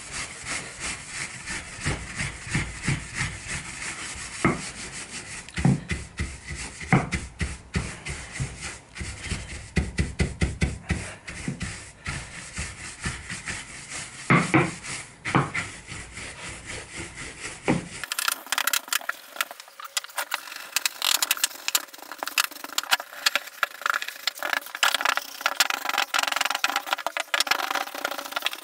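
Soft bristle hand brush scrubbing charred softwood in quick back-and-forth strokes, brushing off the burnt char to bring out the relief in the grain. About eighteen seconds in the sound turns thinner and brighter, a faster dry scratching.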